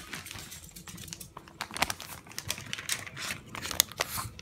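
Plastic food pouch crinkling as it is handled: a string of irregular sharp crackles.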